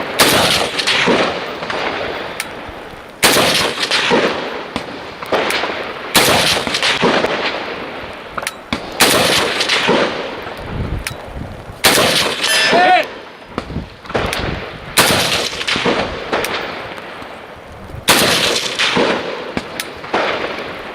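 Rifle fired seven times at a slow, steady pace of about one shot every three seconds. Each sharp crack is followed by a long echo that dies away before the next shot.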